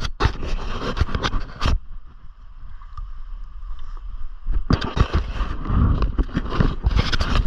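Water splashing and sloshing in two spells of short bursts, one in the first two seconds and another from a little past halfway, as a rainbow trout is handled in a landing net in shallow river water.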